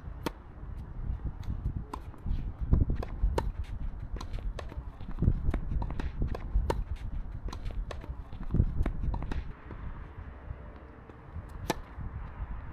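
Doubles tennis rally: a serve, then racquets striking the ball and the ball bouncing on the court, sharp hits in quick irregular succession. The hits stop after about nine seconds, and one more sharp hit comes near the end.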